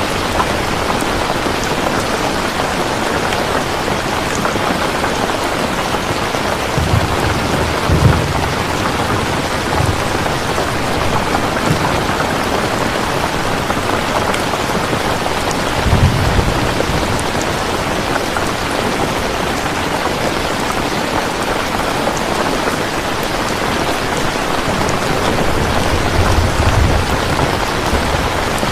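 Steady, heavy rain falling and pattering on a surface, with three brief low rumbles: about a quarter of the way in, halfway through and near the end.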